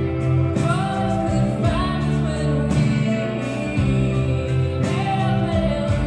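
Live rock band with a woman singing lead, backed by electric bass, guitar and drums with cymbal strokes, the chords held steady under her gliding vocal line.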